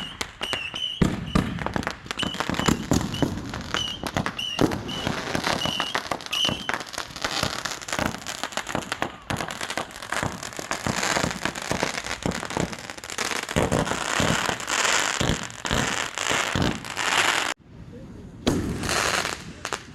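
Dense barrage of consumer aerial fireworks: rapid overlapping bangs and crackling of bursting shells and cakes, with a brief lull near the end followed by a few more bursts.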